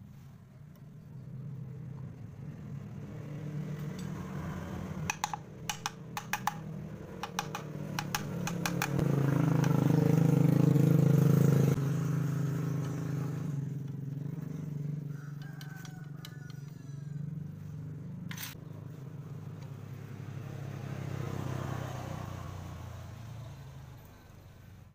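A motorcycle engine running, growing louder to a peak and cutting off sharply about twelve seconds in, then a quieter engine sound that fades away. A run of sharp metallic clicks comes about five to seven seconds in.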